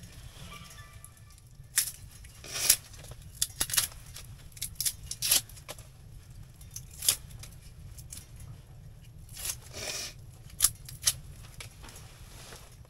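Hands handling firewood at a small tent wood stove: irregular sharp snaps and clicks with short rustles, as of wood and bark being broken and moved about.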